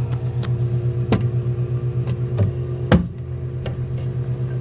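Refrigeration compressor of a 2006 Marvel bar fridge running with a steady low hum, its cooling system still working. Several light knocks from handling the unit, the loudest about three seconds in.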